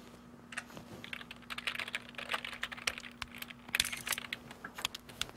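Typing on a computer keyboard: irregular runs of keystroke clicks, with a faint steady hum underneath.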